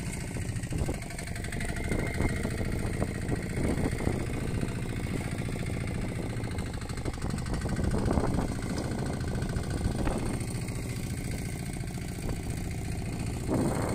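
Fishing boat's engine idling steadily, with a few brief knocks about a third of the way in and again past the middle.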